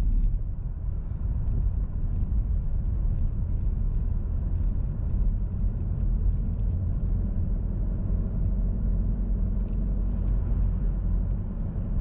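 A car driving slowly up a narrow, rough road, heard from inside the cabin: a steady low rumble of engine and tyres.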